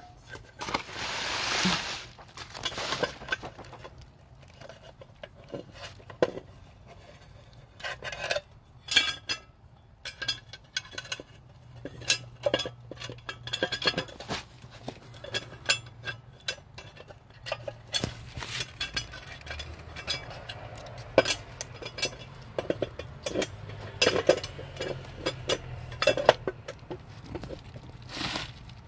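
Irregular metallic clinks and knocks of cast iron stove parts and a thin metal wire being handled and fitted into a mini cast iron wood stove's ash tray opening, with a brief plastic rustle about a second in.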